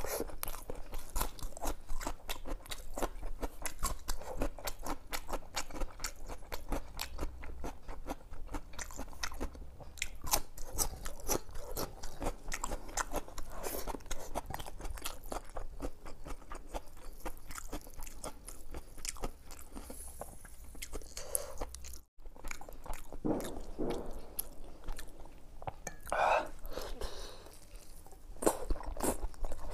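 Fingers mixing khichdi and mutton curry on a plate with many small clicks and squishes, then biting and chewing a mouthful of the food near the end.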